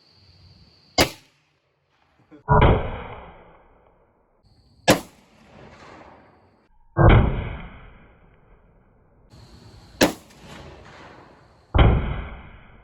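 .223 bolt-action rifle shooting: three sharp cracks, each followed about a second and a half to two seconds later by a louder, heavier bang that rings and fades out.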